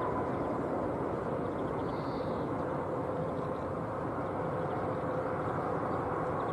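Airbus wide-body airliner's jet engines: a steady rushing roar with a faint steady whine.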